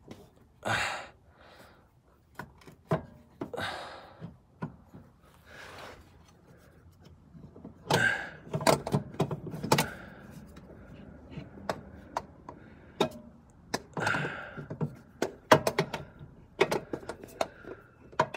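Old starter motor from a 2011 Jeep Grand Cherokee being handled and worked around the engine block and mounting bracket: scattered metallic clicks and knocks, coming in clusters, with a few short soft noisy bursts between them.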